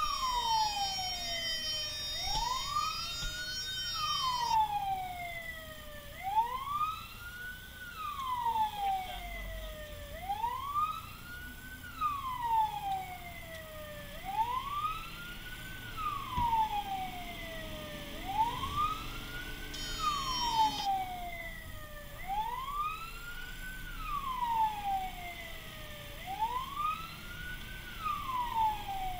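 Fire engine's electronic siren wailing, heard from inside the cab: a tone that rises quickly and falls slowly, repeating about every two and a half seconds, with the truck's engine running low underneath.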